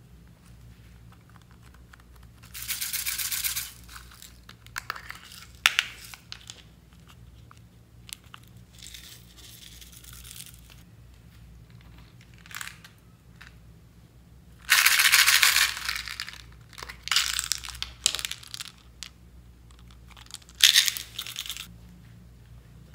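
Small plastic beads and sequins shaken out of a plastic toy container, rattling out in several bursts of a second or so each, with a few sharp plastic clicks between them.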